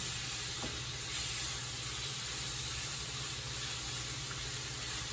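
Pasta Zero noodles frying in hot oil in a skillet, a steady sizzle.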